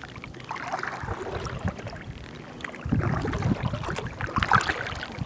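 Water lapping and splashing against a plastic kayak's hull on choppy water, with wind rumbling on the microphone from about three seconds in.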